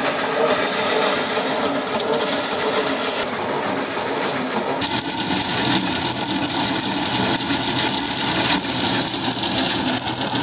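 Drum-type paddy thresher running steadily, its spinning drum whirring and rattling as bundles of rice stalks are held against it and the grain is stripped off.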